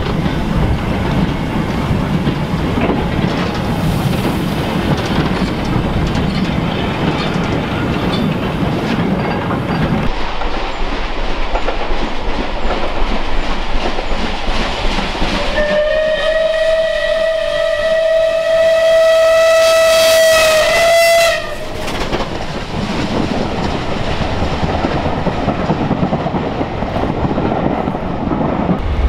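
Goods wagons rolling past at low speed, wheels clicking over the rail joints. Then a steam locomotive sounds one long whistle on a single steady note, held about five seconds, and its train rumbles past beneath.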